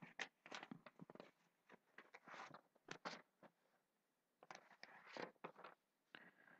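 Near silence: room tone with faint, scattered short rustles and clicks.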